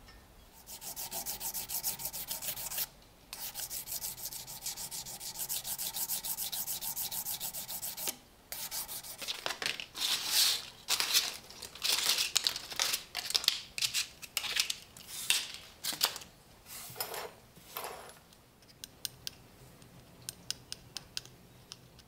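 Small metal trench-lighter parts being hand-sanded: fast, even rubbing strokes for several seconds, then louder, uneven strokes, and a few faint light clicks near the end.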